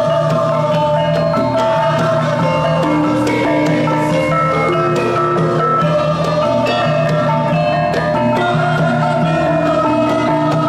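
Javanese gamelan ensemble playing: bronze saron metallophones and bonang kettle gongs struck with mallets, with the kendang hand drum, in a continuous run of ringing metallic notes.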